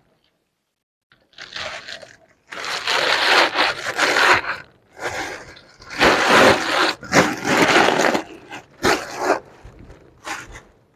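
Clear plastic wrapping crinkling and rustling in irregular bursts as a handbag is pulled out of it and handled.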